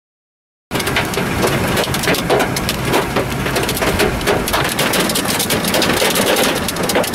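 Heavy rain pelting a car's windshield and roof, heard from inside the moving car, a dense hiss with many sharp hits. It starts suddenly just under a second in.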